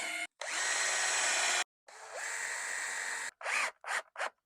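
Power drill running into pallet wood in three runs of about a second and a half each, then a few short stop-start bursts near the end.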